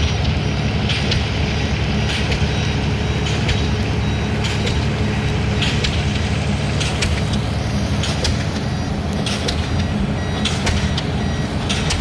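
Heavy diesel engine of a pile-driving rig running steadily, with short sharp metallic clanks at irregular intervals.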